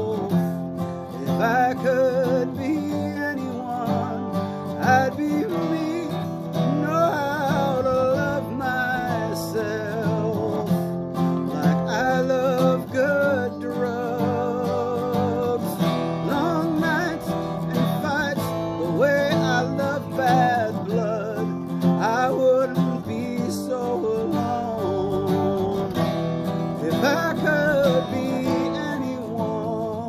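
Acoustic guitar played with a man singing over it, his voice held on long, wavering notes.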